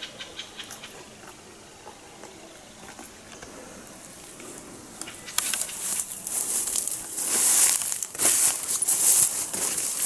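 Footsteps swishing through tall grass and leafy branches brushed aside, loud uneven rustling that starts about halfway in. Before that, only faint light crinkling.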